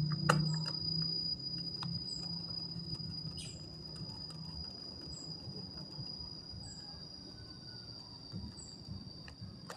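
Faint clicks and taps of laptop parts and screws being handled during reassembly, over a steady high-pitched whine with a short chirp repeating about every second.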